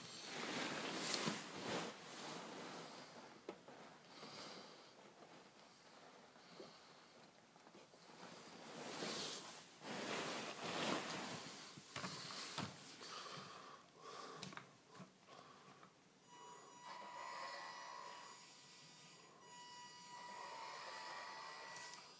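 Small electric motor and gearbox of an RC scale Land Rover Defender 110 crawler whining faintly as it creeps along, pulling a boat trailer over a wooden floor; the thin whine wavers in pitch from about halfway through. Breathy rushes of noise swell up in the first few seconds and again around ten seconds in.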